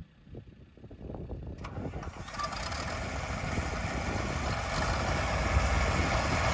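John Deere 4010 gasoline six-cylinder tractor engine cranking with a few low pulses, catching about a second and a half in, then running and growing steadily louder. It is running rich and needs a tune-up, which the owner puts down to dirt in the fuel tank.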